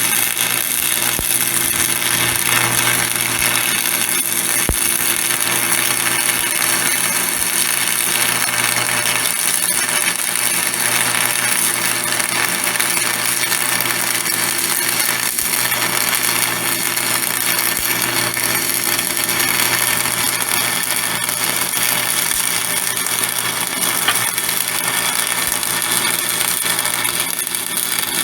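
Electric grinder running continuously against the steel of the sawmill carriage, beveling out a crack to prepare it for welding, with a steady high grinding hiss.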